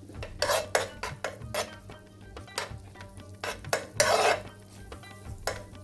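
A utensil stirring in a pan, with irregular clinks and scrapes against the pan, one longer scrape about four seconds in; chili is being stirred into melted butter.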